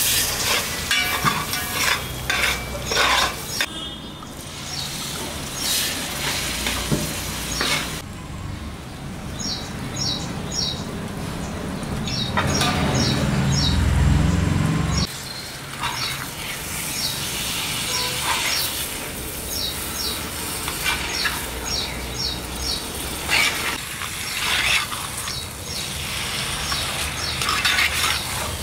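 A metal ladle stirring and scraping a sizzling onion-and-spice masala in a metal pot. About halfway through, a heavy low rumble of raw chicken pieces sliding in from a glass bowl, then more stirring and scraping.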